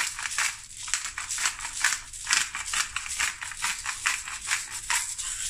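Pepper grinder being twisted, with a fast, dry, rasping crackle as peppercorns are cracked.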